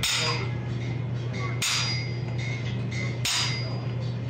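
A striker's hammer hitting a handled top tool held on red-hot steel over an anvil: three blows about a second and a half apart, each with a brief metallic ring.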